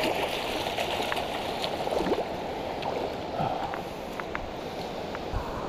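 Shallow stream water running and gurgling, with small splashes and ticks as a hooked steelhead is drawn into a landing net.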